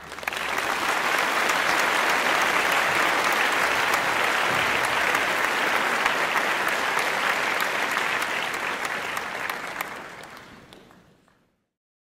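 Crowd applauding: dense, steady clapping that fades out near the end.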